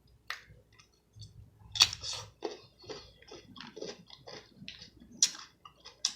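Close-up eating sounds: chewing and wet lip smacks, broken by a few sharp clicks, the loudest about two seconds in and near the end.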